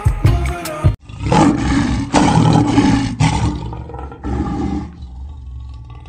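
A lion roaring and growling, rough and rumbling: one long roar of about two and a half seconds, then a shorter one near the end. A brief bird call is heard in the first second, just before it.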